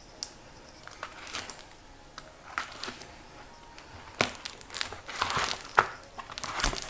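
Packing tape on a small cardboard box being cut and the cardboard flaps pulled open: irregular scraping, crinkling and tearing with a few sharp knocks, busiest in the second half.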